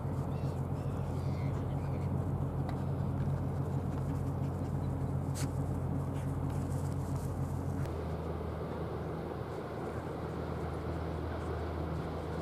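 Steady low engine hum of a Braunschweig-class corvette under way, with a few faint bird calls in the first couple of seconds. The hum shifts in tone about eight seconds in.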